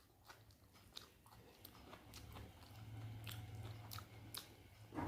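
A person quietly chewing a mouthful of rice with scrambled eggs, with soft wet mouth clicks. A low hum runs through the middle of the chewing.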